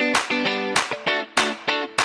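Guitar music: plucked or strummed chords struck in a steady rhythm, about two to three strokes a second.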